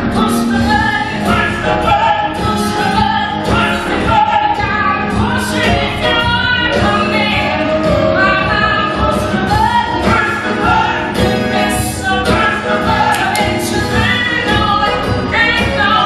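Live stage-musical number: a female lead and ensemble voices singing an upbeat song over a pit band with a steady beat.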